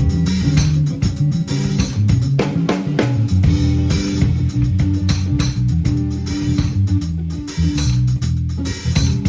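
Instrumental rock band playing: electric guitar and bass guitar over a drum kit, with a busy moving bass line and steady drum and cymbal hits.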